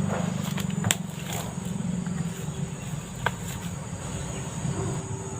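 Fast-flowing river current rushing steadily below a high bank, with a few sharp clicks about a second in and again near the three-second mark.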